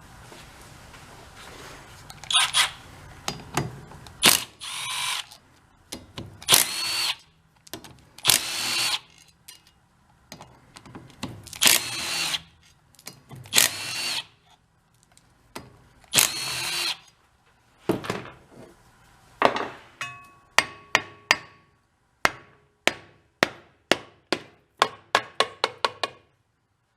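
A cordless power driver runs in about ten short bursts with a whine, spinning out the bolts on a small four-stroke engine's crankcase cover. Near the end come a string of sharp knocks, about two a second.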